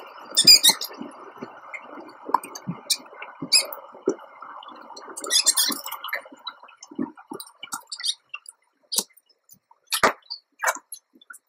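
Paper nesting material rustling and crinkling with scattered light clicks and taps as a mother rodent moves about her nest of newborn pups in a wire cage. A steady background hiss fades out about two thirds of the way through, leaving only the sparse clicks.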